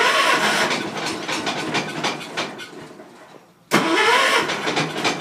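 Old Ford tractor engine being cranked on choke for a cold start. There are two tries, each starting suddenly with a rising whine and fading out over a few seconds. The second comes about three and a half seconds in.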